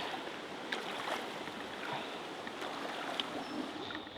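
Steady rush of flowing water, with a few faint ticks over it.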